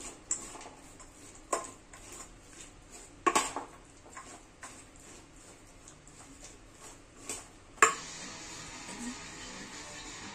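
A metal fork clinking against a stainless steel mixing bowl while stirring chopped vegetables and corned beef: a handful of sharp, scattered clinks, the loudest about eight seconds in.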